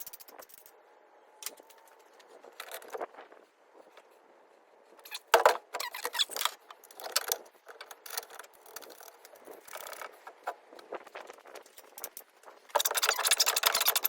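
Small metal parts clinking and rattling as they are handled, in irregular bursts of clatter, with a denser run of rattling near the end.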